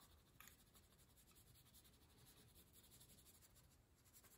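Very faint wax crayon scribbling on paper, quick back-and-forth colouring strokes, with a light tick about half a second in.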